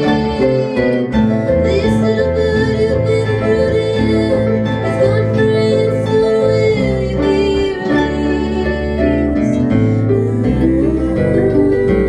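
Harp and acoustic guitar playing together live: a steady run of plucked notes with low bass notes underneath.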